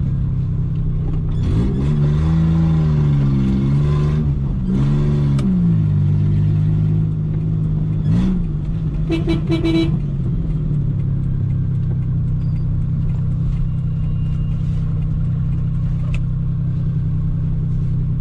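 Suzuki Khyber (Cultus) G10 three-cylinder petrol engine heard from inside the cabin, revving up and dropping back several times in the first few seconds, then running at a steady pitch. A horn gives a quick run of short toots about nine seconds in.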